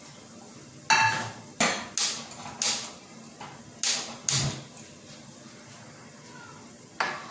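Kitchen cookware being handled: a string of sharp knocks and clatters, seven in all, the first with a brief ring.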